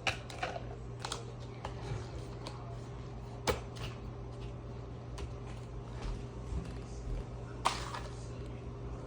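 Light taps and clicks at irregular intervals over a steady low hum, the sharpest about three and a half seconds in and again near the end.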